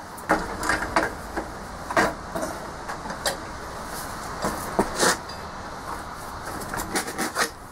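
Scattered metallic clicks and knocks from a motorcycle rear wheel being worked free of the swingarm once its axle is out, over a steady low background rumble.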